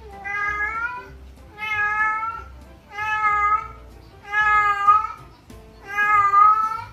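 Domestic cat meowing loudly over and over, five long drawn-out calls about a second and a half apart: a cat calling out for its owner.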